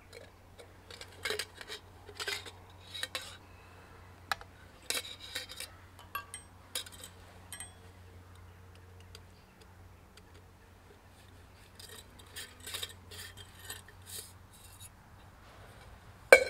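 Stainless steel camp mug, lid and a small metal utensil clinking and scraping as they are handled, in irregular clusters of light metallic taps, with one sharp, loud clink just before the end.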